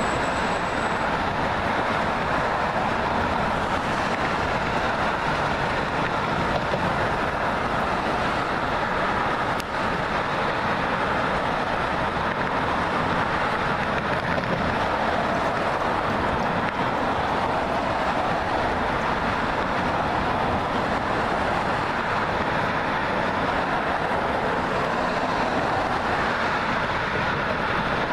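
Steady, unbroken road traffic noise.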